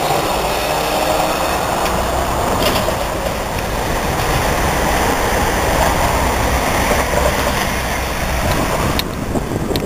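Street traffic with a CAF Urbos 3 tram and an articulated bus passing through an intersection: a steady, loud mix of motor and rolling-wheel noise. About nine seconds in, the higher part of the noise drops away.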